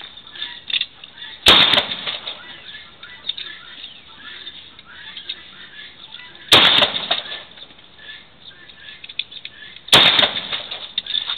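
Three single handgun shots a few seconds apart, each followed by a brief echoing tail, with faint small clicks in between.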